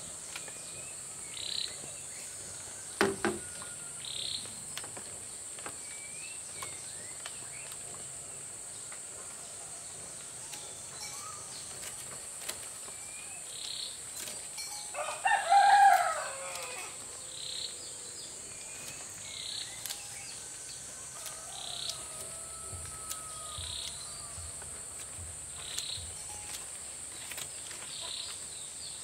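Forest ambience: a steady high insect drone, with short chirps repeating every couple of seconds. A sharp knock comes about three seconds in, and a louder pitched call lasting about a second and a half comes about halfway through.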